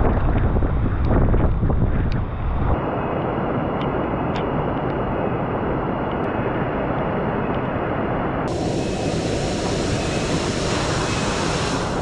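The steady heavy rush of a waterfall in pouring rain, with wind buffeting the microphone. About three seconds in it gives way to the even rush of a fast, rain-swollen stream, with a few sharp ticks.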